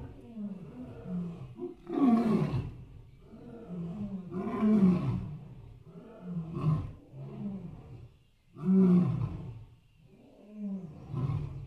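Lion roaring: a series of deep roars, one about every two seconds, each falling in pitch, the loudest about two, five and nine seconds in.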